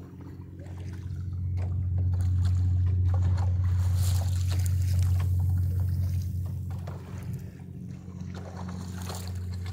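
Water slapping and splashing against a wooden sailboat's hull as it rides the swell of a passing boat's wake, over a steady low hum that swells louder after the first second or so.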